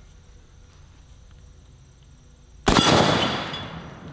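A single shot from a Henry All-Weather lever-action .45-70 rifle about two and a half seconds in: a sudden crack followed by a long echo that fades over about a second and a half.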